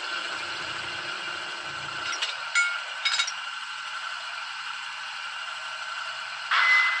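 Diesel engine sound from the sound decoder of a Piko N-scale class 221 model locomotive, played through its small speaker: a steady, thin running sound with no deep bass. A few short clicks come about two to three seconds in, and it gets louder near the end.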